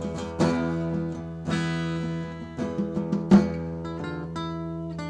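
Background music: acoustic guitar strummed and plucked, with a strum about once a second that rings out and fades.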